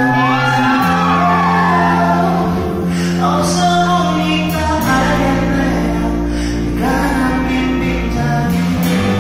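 Live rock band playing a song: a male lead singer sings over sustained electric bass notes and guitar, heard from the audience in a large hall.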